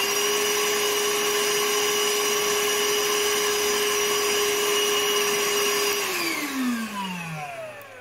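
Einhell TE-VC 18/10 Li cordless wet and dry vacuum's motor running at a steady high pitch on a battery being drained toward low charge. About six seconds in, it stops and winds down, falling in pitch over about two seconds.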